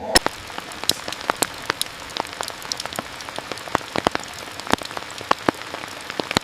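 Steady rain hiss with many separate heavy drops tapping sharply and irregularly on a surface.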